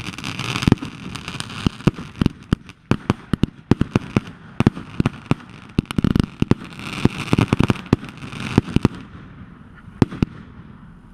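Fireworks and firecrackers going off in a rapid, irregular series of sharp bangs and pops, with bursts of hissing. The bangs thin out over the last two seconds.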